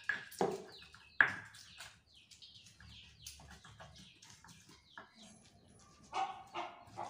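Stone pestle grinding chili paste in a stone mortar (Indonesian ulekan and cobek): scraping strokes with scattered stone-on-stone knocks, the sharpest about a second in.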